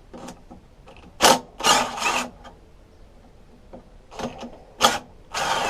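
A socket tool working the exhaust nuts on a Briggs & Stratton lawnmower engine: short bursts of mechanical clicking and whirring, two runs of under a second each with single clicks between them.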